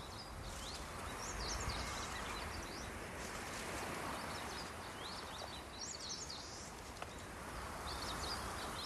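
Small birds chirping in short, high calls, again and again, over a steady hiss of marsh ambience.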